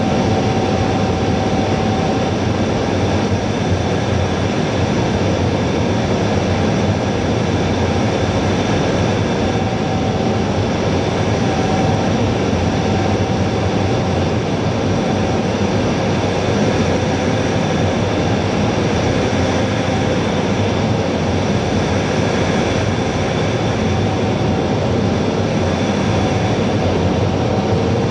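Steady cockpit noise of an A-10 in flight: the drone of its twin TF34 turbofan engines and the rush of air over the canopy, with a faint high whine held steady on top.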